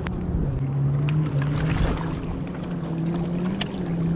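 A boat engine drones steadily out on the lake. Its pitch dips shortly after the start, climbs back about a second later and then creeps slowly up. A few sharp clicks come at the start, about a second in and near the end.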